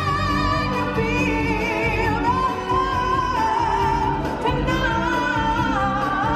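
Music with a singer holding long notes with a wide vibrato over full instrumental backing.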